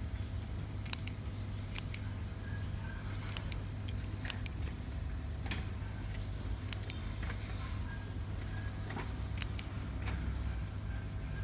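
Scissors snipping leaves and stems off a chili plant: about ten short, sharp snips at uneven intervals over a steady low hum.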